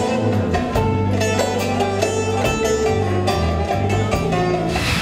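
Bağlama (Turkish long-necked saz) playing a quick plucked folk melody in regular strokes over a sustained bass accompaniment. Near the end the music gives way to a rising rushing noise.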